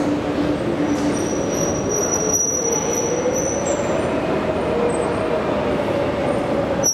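Metro train running at the station platform with a steady rumble. A motor whine slowly rises in pitch, and high-pitched wheel squeal comes in about a second in and again near the end.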